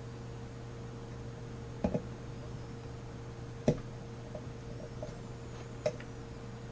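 Lock pick clicking against the pins inside a grimy Master Lock 150 padlock while under tension: a few sharp, isolated metallic clicks, the loudest about a second and a half to two seconds apart, with fainter ticks between. A steady low hum runs underneath.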